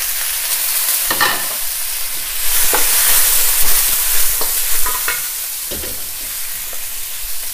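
Blanched pork ribs frying with ginger and garlic in hot oil in a wok on high heat, making a steady sizzle. A wooden spatula scrapes and knocks against the wok a few times as the ribs are stirred.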